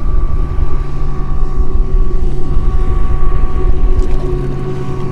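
A boat motor running steadily, a low hum whose pitch shifts slightly about four seconds in, under a loud rumble of wind on the microphone.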